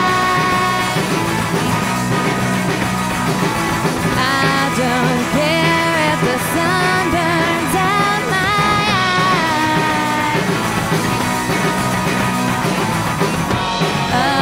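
A rock band playing live, with guitars, bass and drums.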